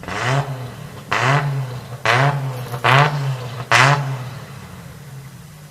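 Nissan Patrol's RB25DET turbocharged straight-six engine blipped five times in quick succession, each a short rise and fall in revs about a second apart, then settling back to a steady idle.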